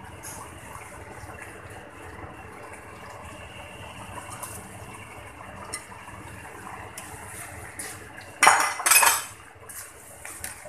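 A steady hiss from a steel pot of water boiling on a gas stove. About eight and a half seconds in there are two loud, short splashing clatters as soaked rice is tipped from a glass bowl into the boiling water.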